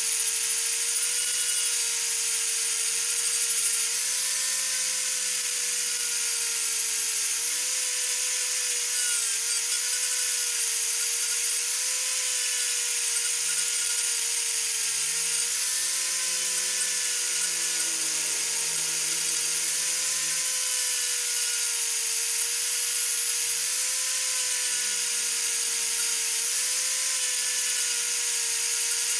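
Electric angle grinder running continuously while grinding, a steady whine that dips slightly in pitch now and then as it is pressed on, over a loud grinding hiss.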